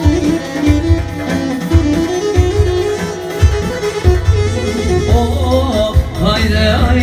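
Live wedding band playing Albanian folk dance music in an instrumental passage: a melody line over a steady low beat.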